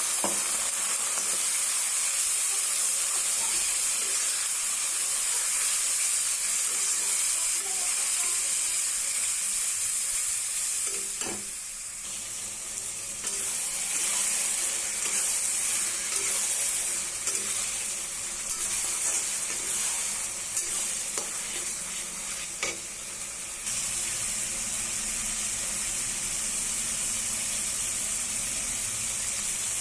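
Food sizzling as it fries in hot oil in a pan, with a steady hiss. A few sharp clinks, typical of a spoon against the pan, come twice in the middle, and the sizzle is quieter for a stretch before picking up again.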